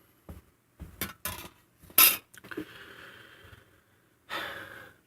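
Short clinks and knocks of an opened metal food tin being handled, the sharpest about two seconds in, followed by a soft hiss and a breathy exhale near the end.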